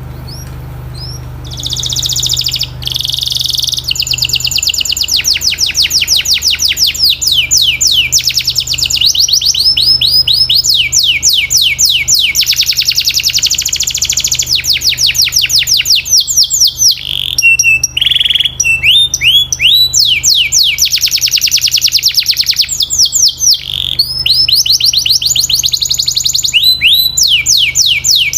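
Domestic canary singing a long song of fast trills: runs of rapidly repeated rising notes that change speed from phrase to phrase, with brief breaks between phrases. A low steady hum runs underneath.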